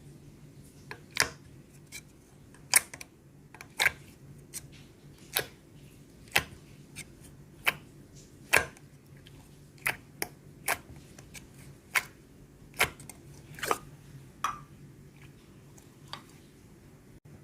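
Slime being pressed and poked, making sharp clicks and pops roughly once a second over a steady low hum.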